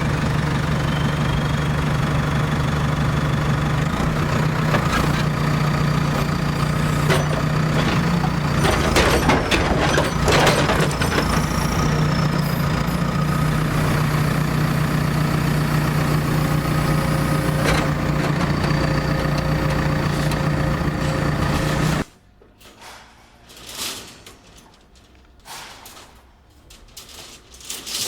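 Heavy vehicle engine idling steadily, with clanks and rattles over its low hum; it cuts off suddenly about 22 seconds in, followed by a few quieter scattered knocks.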